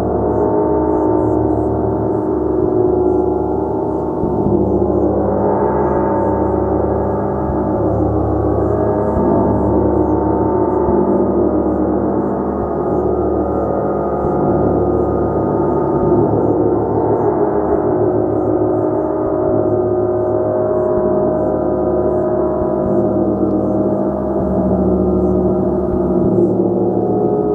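Gong being played continuously in a sound bath, a dense, shimmering wash of many overlapping sustained tones that swells and shifts slowly without a break.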